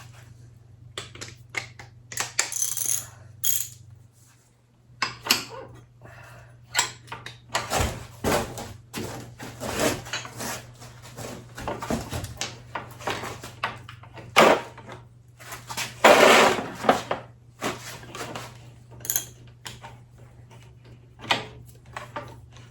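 Metal hand tools and parts clinking and knocking irregularly during motorcycle front-fork work, with a louder, longer clatter about sixteen seconds in.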